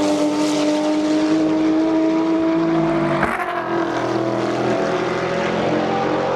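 Endurance race car engines running at high revs as cars pass through the corner. One engine note falls slightly as it goes by, and a second car's engine takes over about three seconds in.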